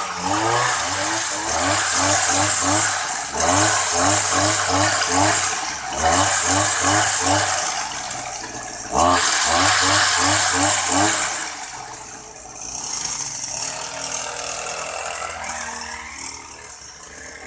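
Makita 25cc weed-eater engine running on a friction-drive bicycle, spinning the rear tyre through its roller, with a pulse about three times a second. It is throttled up twice, then drops back and fades as the bike rides away.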